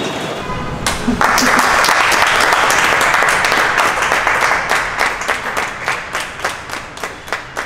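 A small group of people clapping and applauding: it starts suddenly about a second in, fills in densely, then thins out into scattered single claps near the end.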